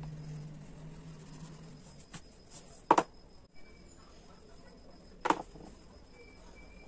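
Oil pastel rubbing on paper, with two sharp knocks on the wooden table about two seconds apart. A low hum fades out in the first two seconds.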